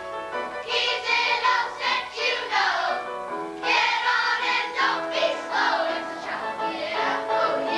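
A group of children singing together in a stage musical number, with instrumental accompaniment holding steady notes beneath the voices.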